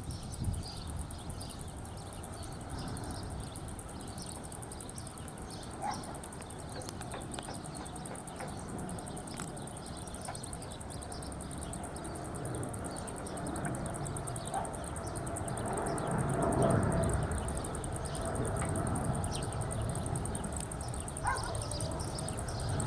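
Outdoor ambience: birds chirping and a steady, fast-pulsing insect buzz over a low rumble that swells about two-thirds of the way through.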